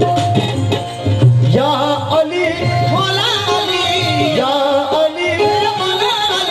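Qawwali music: a harmonium plays under hand-drum strokes, and from about a second and a half in a man sings long, wavering phrases.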